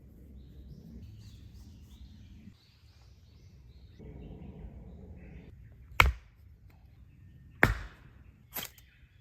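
Three sharp strikes, the first about six seconds in, the next about a second and a half later and the last a second after that, each with a brief ring. Faint birds chirp before them.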